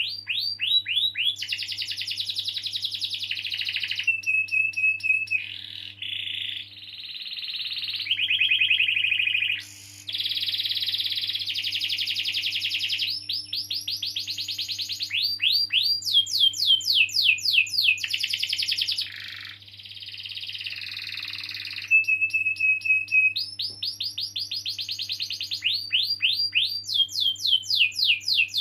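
A domestic canary singing a long, unbroken song of rapid rolling trills, runs of quick falling whistles and short held notes, switching phrase every second or two. A faint steady electrical hum runs underneath.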